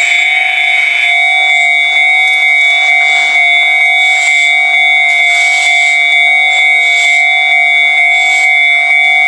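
Japanese railway level crossing's electronic warning bell ringing steadily: the crossing is closed for an approaching train.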